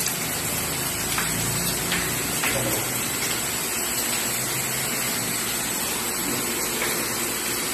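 Steady rush of water running through a water refilling machine, with a thin, steady high whine and a few faint clicks.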